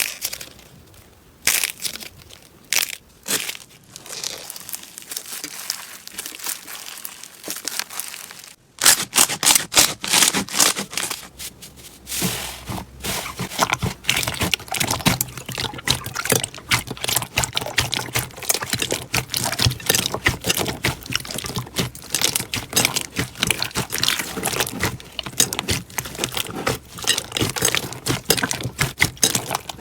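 Slime being squeezed and pressed by hand, making crackling pops. A few separate crackles come in the first several seconds, then after an abrupt change about nine seconds in, a dense, continuous crackling runs on.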